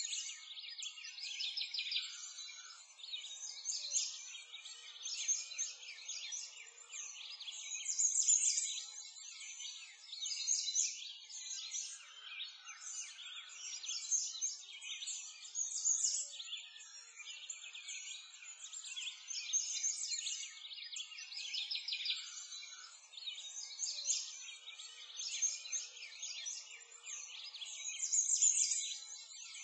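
A dense chorus of small songbirds chirping and singing together, continuous and high-pitched, swelling louder and easing off every few seconds.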